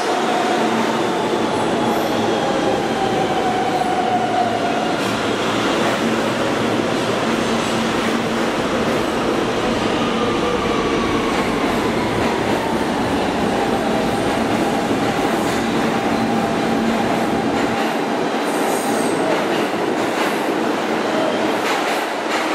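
New York City subway train running on the rails: a steady rumble with wheel squeal, thin squealing tones that slide slowly downward. The low rumble thins out about two thirds of the way through.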